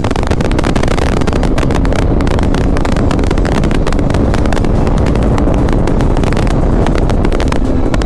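KTM RC 390's single-cylinder engine running steadily under way, nearly buried under loud wind rush and buffeting on the helmet-mounted microphone at riding speed.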